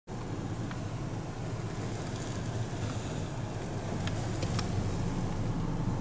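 Car cabin noise: a steady low rumble of the car running, heard from inside, with a few faint light ticks.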